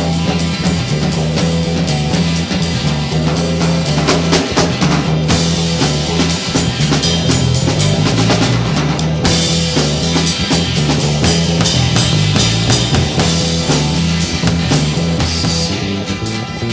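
Background music: a band track with a busy drum kit and a steady bass line.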